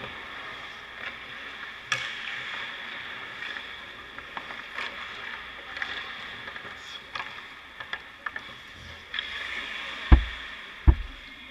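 Hockey practice on an indoor ice rink: skate blades scraping and hissing on the ice, with scattered sharp clicks of sticks and pucks. Two heavy thuds come about ten and eleven seconds in, the loudest sounds here.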